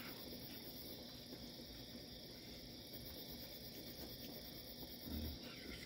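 Night insect chorus: a steady, high chirring of crickets that carries on without a break.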